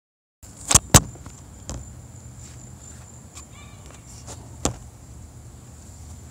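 Two loud knocks about a quarter second apart near the start as the phone is set down on a wooden bench, then a couple of softer knocks, over a steady high-pitched insect buzz.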